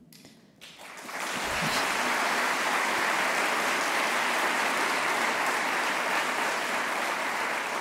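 Audience applauding. It builds up in about the first second, holds steady, then tapers off near the end.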